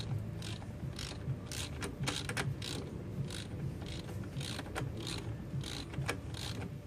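Ratchet wrench clicking in repeated short strokes, about two a second, working bolts on a truck's rear-end differential.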